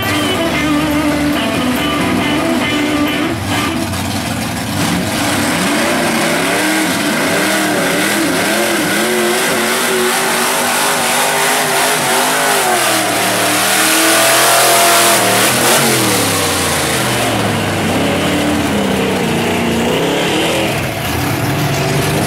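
Lifted mud-bog trucks on oversized mud tyres, engines revving hard as they churn through a mud pit, the pitch climbing and falling again and again. Near the middle the revs peak and a loud hiss joins in over the engines.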